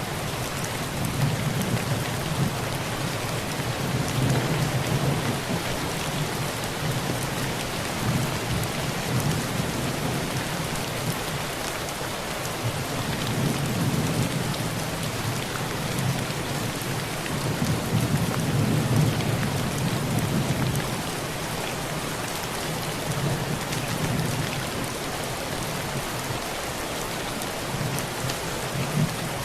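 Heavy rain drumming steadily on a metal roof, with low rolling thunder swelling and fading several times underneath.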